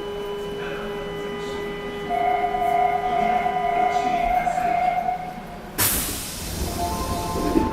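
Inside a Nagoya Municipal Subway 6000-series train car: steady electrical whine tones from the train's equipment, joined by a brighter tone about two seconds in. About six seconds in comes a sudden loud hiss of air, then new pitched electric-motor tones from the GTO inverter start up near the end.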